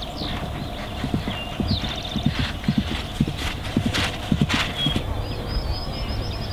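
Hoofbeats of a horse cantering across grass: a steady run of dull thuds that grows loudest as it passes close by and dies away about five seconds in.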